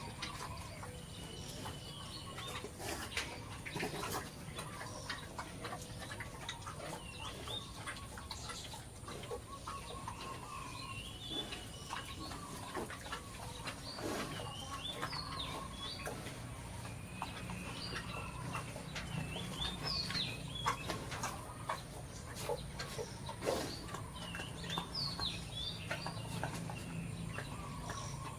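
Chickens clucking and birds chirping over and over, short high calls throughout, with scattered clicks and knocks.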